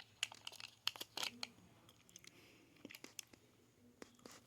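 Faint, scattered small clicks, scrapes and crinkling from hands handling a hard drive and its parts.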